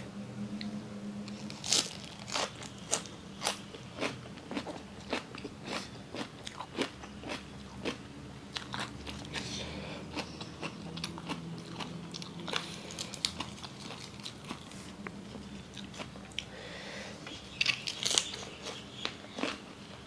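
Close-miked eating: a person biting and chewing spicy Thai squid salad wrapped in crisp lettuce and raw vegetables, with irregular crunches and wet chewing sounds.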